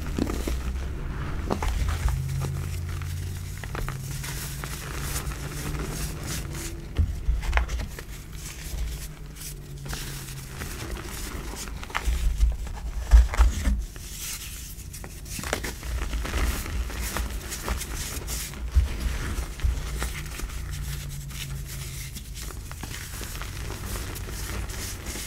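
Hands crushing and crumbling black reformed gym chalk into loose chalk powder: a steady run of soft crackles and sharp crunches over dull handling thumps. The loudest crunches come about 7 seconds in and again around 13 seconds.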